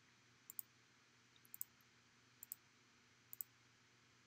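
Faint double clicks of a computer mouse or trackpad button, four pairs about a second apart, placing parts in a CAD program; otherwise near silence.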